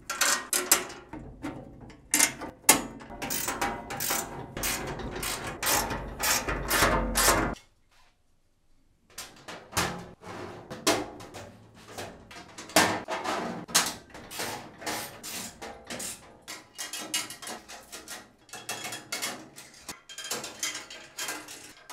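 Socket ratchet clicking as bolts are run into a steel cart frame, mixed with metal parts clinking and knocking. The sounds break off for about a second around eight seconds in, then the clicking and clinking resume.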